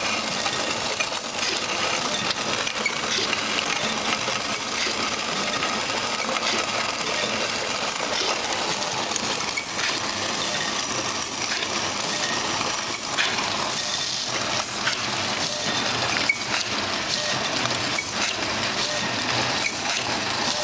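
Sugar sachet packing machine with volumetric cup dosing, running steadily: a continuous mechanical hiss and hum with frequent light clicks from its moving parts.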